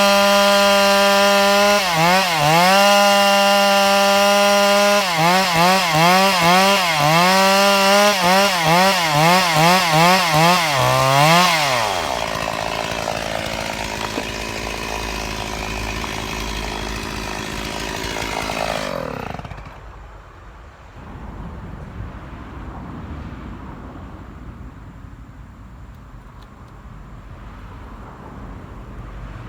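Two-stroke chainsaw running at high revs, its pitch dipping and recovering over and over. About twelve seconds in it drops to a lower, quieter running, and about seven seconds later it stops.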